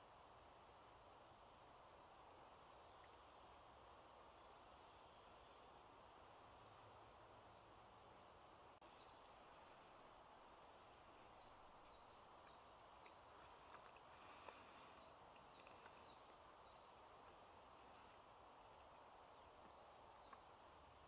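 Near silence: faint woodland ambience with small birds calling in short, high chirps scattered throughout, and a couple of soft clicks around the middle.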